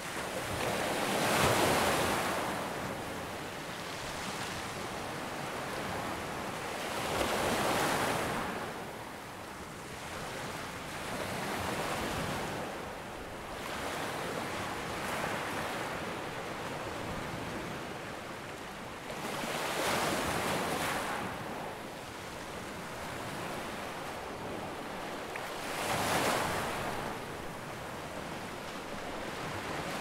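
Ocean surf: waves breaking and washing in, a steady rushing noise that swells into a louder surge about every five or six seconds and falls back between.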